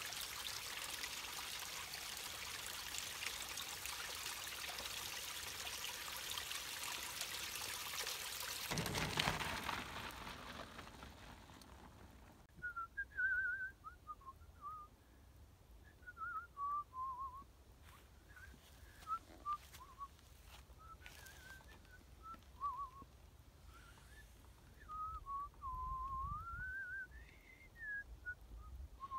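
A small stream running over rocks with a steady splashing hiss, which stops abruptly about twelve seconds in. A person then whistles a slow tune of short, sliding notes.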